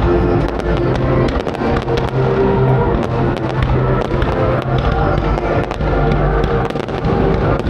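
Fireworks going off in a rapid, irregular string of sharp cracks and pops, over music playing loudly.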